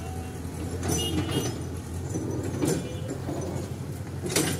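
Kobelco excavator's diesel engine running steadily as it digs in a canal, with a few sharp clanks or scrapes along the way, the loudest about four seconds in.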